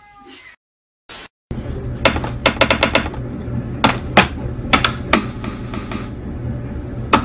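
A quick run of sharp taps about two seconds in, then scattered single taps, over a steady low hum.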